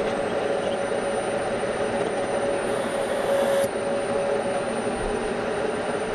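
Bridgeport milling machine running with a steady whir and a constant hum-like tone while a centre drill spots hole positions in a cast cylinder cover.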